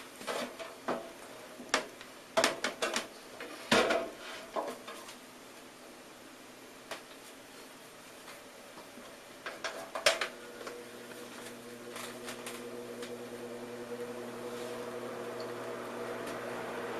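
A cluster of sharp metallic clicks and knocks, then more clicks about ten seconds in. Right after, the 1956 Arvin model 7414 two-speed box fan's electric motor starts with a steady hum, and the hum and air noise grow louder as the blades spin up.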